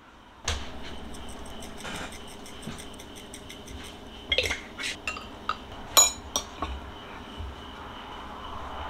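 Chopsticks, a small glass seasoning jar and ceramic plates and bowls clinking together as food is served: a run of light ticks, then several sharper clinks, the loudest about six seconds in.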